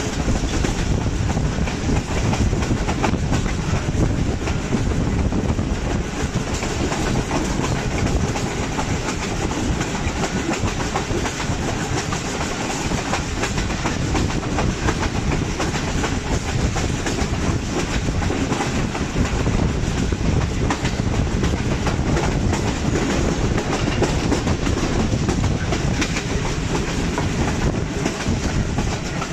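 Moving Pakistan Railways passenger train heard from an open coach window: a steady rumble of wheels on the track with a constant clickety-clack over the rail joints.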